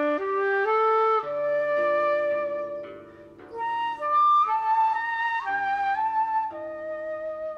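Background music: a flute melody of long held notes gliding between pitches, with a low drone entering about a second in.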